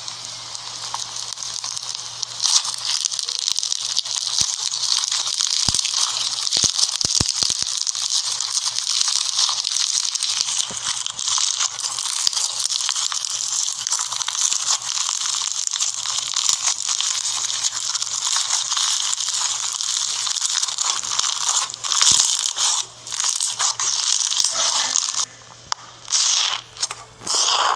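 Slime being squeezed and worked by hand: a dense, continuous crackling full of tiny pops. Near the end it breaks up into separate short squishes.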